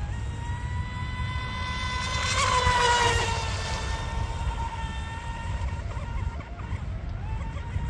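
Electric RC mono-hull speedboat running flat out across a pond: a steady high motor whine that swells loudest as the boat passes close about two and a half seconds in, drops slightly in pitch as it goes by, then fades as it runs away.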